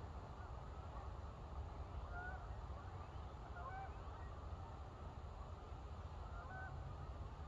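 Distant geese honking a few times, short separate calls over a low steady rumble.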